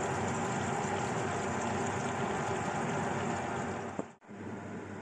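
Ground-beef patties sizzling in hot oil in a frying pan. About four seconds in the sound cuts out abruptly with a click, and a quieter steady sizzling hiss follows.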